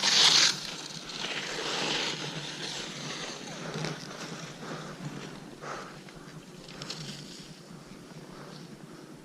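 Skis hissing and scraping over snow, with wind on the microphone. A loud swish comes right at the start and another about two seconds in, then fainter swishes that die down.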